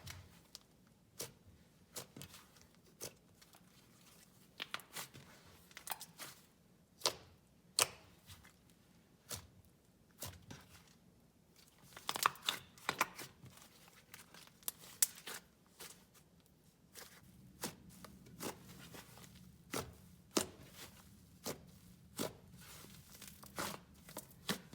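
Creamy slime being handled for ASMR, with irregular sharp pops and clicks as air trapped in the slime bursts while it is stretched and pressed.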